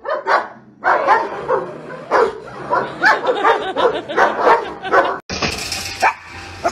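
Large shepherd-type dog barking repeatedly in a rapid run of barks, about two to three a second, cut off suddenly about five seconds in.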